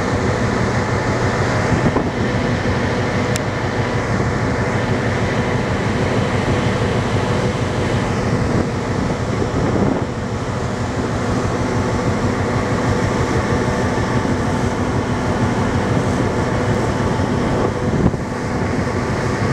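A ferry's engines and machinery running at cruising speed, a steady, even drone with a low hum under it, and a single brief click about three seconds in.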